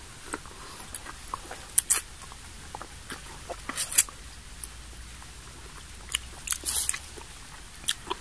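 A person eating rambutan fruit: scattered short wet clicks and smacks of chewing and sucking at the fruit.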